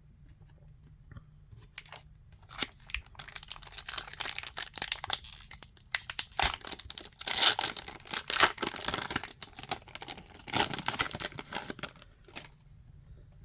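Foil trading card pack wrapper being torn open and crinkled by hand: irregular crackling and tearing that starts about two seconds in, is loudest past the middle and stops about a second before the end.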